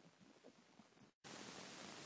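Faint microphone hiss and crackle from a motion-triggered camera. About a second in, the sound drops out completely for an instant at a clip cut, then an even, louder hiss starts.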